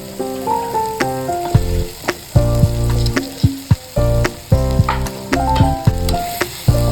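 Food sizzling in a frying pan with stirring, under background music with a melody, a bass line and sharp percussive clicks.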